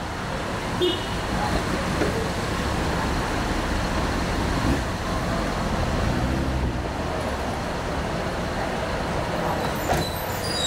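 Steady street traffic: cars, a motorcycle and buses driving past, with a city bus passing close near the end.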